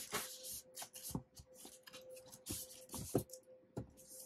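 Cardboard scraping and rustling as a printed outer sleeve is slid off a red cardboard inner box, with a few light knocks as the box is handled.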